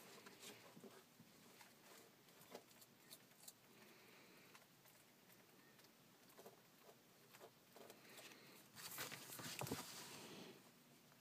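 Mostly near silence with faint scattered ticks and scrapes. About nine seconds in, a louder stretch of rustling lasts over a second, like a phone being handled and moved.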